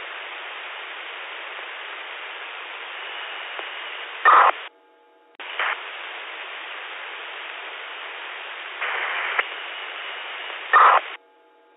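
FM two-way radio receiving an open carrier with no voice on it: a steady static hiss over the linked repeater, dropping out briefly about halfway through, with a louder burst of noise just before each stretch cuts off. The net controller takes this for the linked repeaters triggering each other rather than anyone transmitting.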